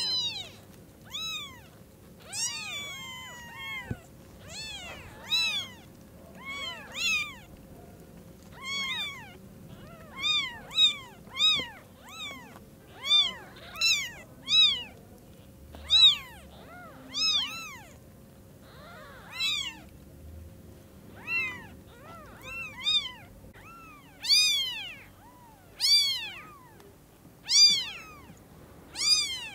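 Newborn kittens mewing: short, high cries that rise and fall in pitch, repeated about once a second, some coming in quick pairs.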